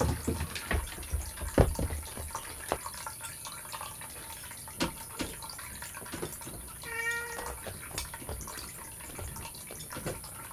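A cat meows once, briefly, about seven seconds in. Scattered soft knocks and low thumps come before it, the loudest about one and a half seconds in.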